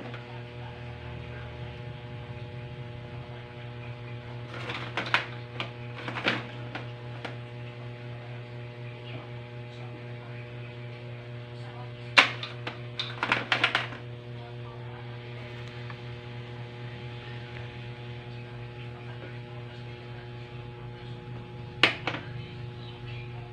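Ladle clinking against a plastic batter basin and plastic puto moulds in an aluminium steamer tray while batter is spooned into the moulds, in three short clusters of sharp clicks, over a steady electrical hum.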